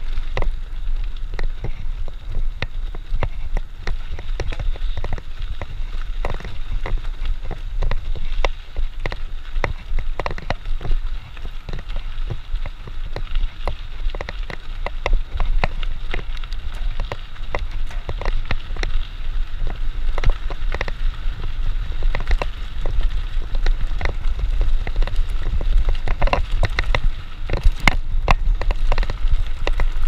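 Mountain bike ridden fast down a leaf-covered dirt trail: a steady low wind rumble on the camera with dense, irregular crackling and clattering as the tyres run over the ground and the bike jolts over bumps.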